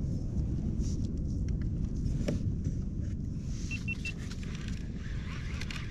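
Wind buffeting the microphone with a steady low rumble, with a few small handling clicks and three short, high, evenly spaced beeps about four seconds in.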